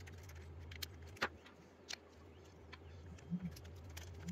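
A few faint, scattered clicks and small metallic ticks as M5 machine screws are hand-driven with a Phillips screwdriver into a plastic grille marquee, over a low steady hum.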